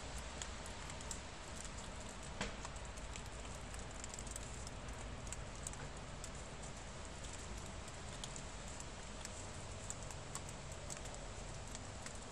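Light patter and scattered soft clicks over a steady hiss: puppies' paws scuffling in thin snow and dry leaves as they wrestle, with one sharper click about two and a half seconds in.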